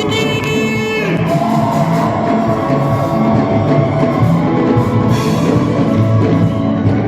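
Band music with drums, bass and guitar or keyboard and a steady beat, with a voice singing a held, wavering line in the first second.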